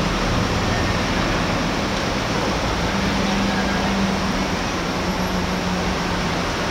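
Dense fireworks barrage, the bursts merging into one continuous rumble and crackle with no single bang standing out.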